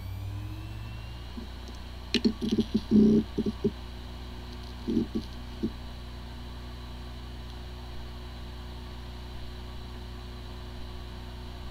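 Hard disk drive spinning up with a brief rising whine, then running with a steady hum, and a few bursts of short knocks about two seconds in and again near five seconds. These are the sounds of a drive whose disks spin nicely but which cannot be accessed, typical of disk firmware corruption.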